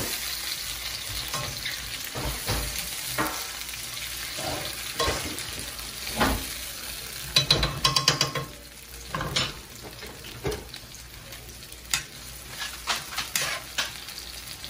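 Chopped onions, tomato, peppers, garlic and thyme sizzling in oil in a frying pan over a low flame, while a fork and then a spatula stir them, scraping and tapping against the pan. There is a quick run of scrapes about eight seconds in.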